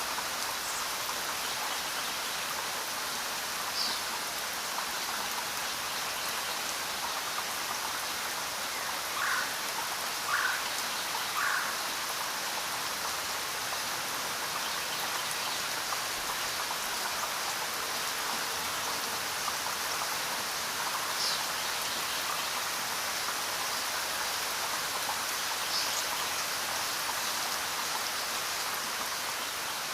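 Steady rain falling, an even hiss. About a third of the way in come three short, slightly louder sounds about a second apart, and a few fainter ones later.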